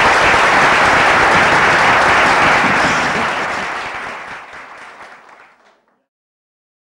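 Audience applauding, a dense crowd of clapping that fades away from about three seconds in.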